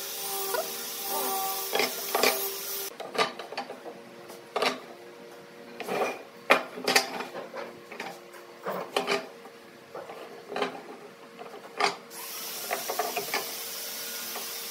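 Curved wooden slats clacking and knocking on a wooden workbench as they are picked off a stack and set down one by one, in irregular knocks. A faint steady hum runs under them, with a hiss for the first few seconds and again near the end.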